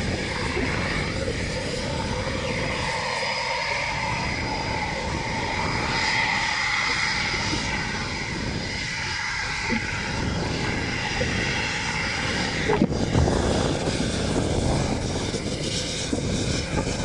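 Eurofighter Typhoon's twin EJ200 turbofan engines running at low power as the jet rolls on the ground: a steady whine of several high tones over a continuous rushing noise.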